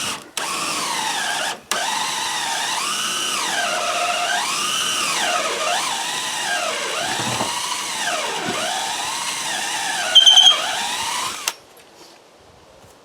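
Power drill running almost without a break, its motor pitch rising and falling as speed and load change, with a short pause about a second and a half in and a louder spell just before it stops near the end.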